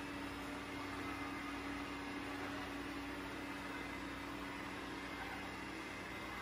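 Dreame L10s Ultra robot vacuum running as it drives across a tile floor: a steady motor hum with one held tone under an even hiss.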